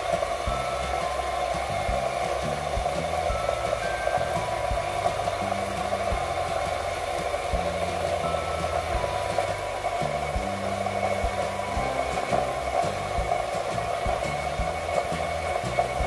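Background music with a stepping bass line over a steady whir from a small 12 V DC motor belt-driving an air-conditioner outdoor fan motor that is running as a generator.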